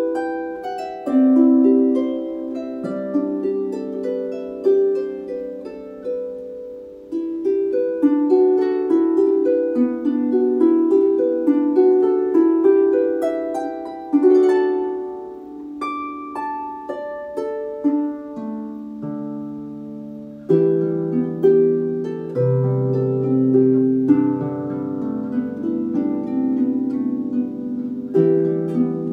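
Solo Dusty Strings FH36S lever harp playing a gentle melody of plucked notes that ring and fade, with deeper bass notes coming in strongly about two-thirds of the way through.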